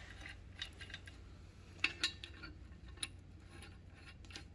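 Light metallic clinks and taps of steel parts being handled and set into a Ford F350 rear differential housing as the bearing caps are fitted, with a couple of sharper clinks about two seconds in, over a low steady hum.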